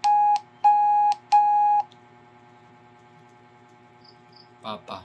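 Morse code tone sounding the letter O: three long beeps (dashes) at one steady pitch, evenly spaced, in the first two seconds.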